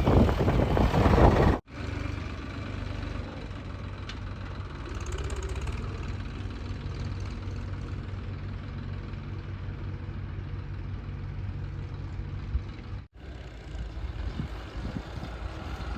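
Heavy diesel engine running steadily. It is broken by two abrupt cuts, at about a second and a half in and again near the end, and is preceded by loud rumbling wind noise on the microphone.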